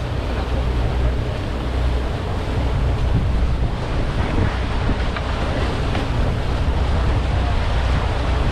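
Charter fishing boat under way: its engine runs with a steady low hum under the rush of water along the hull and wind buffeting the microphone.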